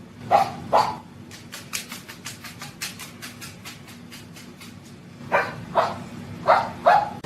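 Six short barks in three pairs, the first pair at the start and two more pairs near the end, with faint quick clicking in between.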